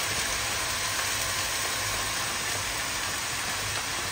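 Chicken deep-frying in a wok of hot oil: a steady sizzle.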